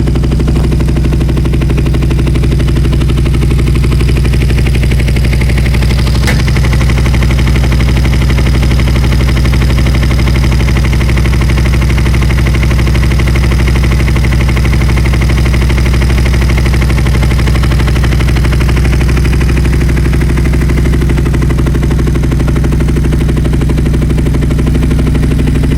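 Kawasaki EX500 Ninja's parallel-twin engine idling steadily at an even pitch, running on freshly repaired carburettors. A single sharp click about six seconds in.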